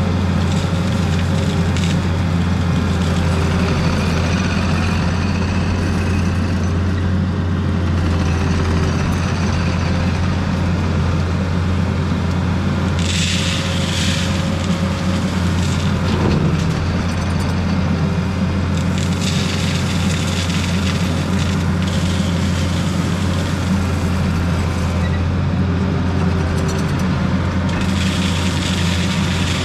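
Diesel engine of heavy earthmoving equipment running steadily under work, with a few short bursts of hissy noise over it.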